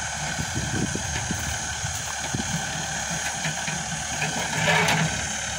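A loader's diesel engine idling, a steady rumble with a brief louder moment near the end.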